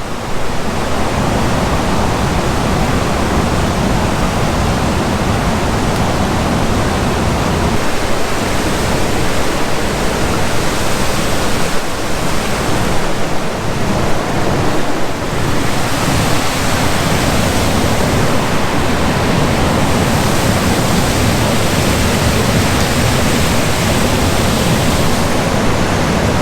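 Waterfall pouring into a pool: a loud, steady rush of water that hardly changes.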